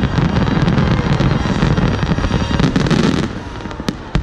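Fireworks display at its finale: a dense barrage of shell bursts with rapid crackling over a low rumble. It dies down about three seconds in, leaving a couple of single sharp reports near the end.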